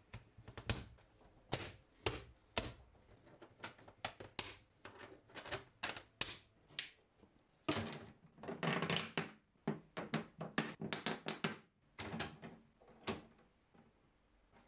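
Hard 3D-printed plastic parts of a honeycomb storage wall clicking and knocking together as they are fitted and hooked in place, in many separate sharp clicks with a denser run of rattling clatter about eight seconds in.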